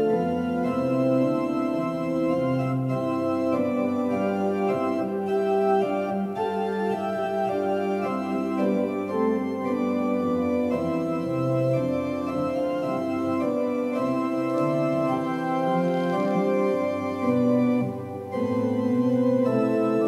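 Organ music: slow, sustained chords that change every second or two, with a short lull near the end.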